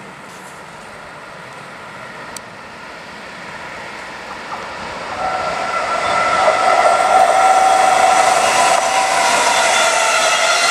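DB class 146 electric locomotive and its double-deck regional coaches approaching and passing, the running noise growing steadily louder. From about five seconds in a steady high whine of several tones rides over the rolling noise as the train draws level.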